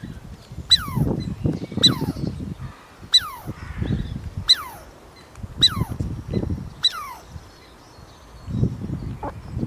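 An animal calling: six short, sharply falling squeals, about one a second, over low rustling noise.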